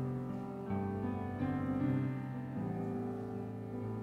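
Soft keyboard music of slow, held chords that change to a new chord every second or so.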